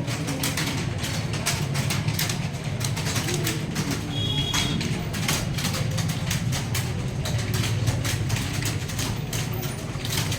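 Computer keyboards typing fast, a dense, irregular patter of key clicks several a second, over a steady low hum.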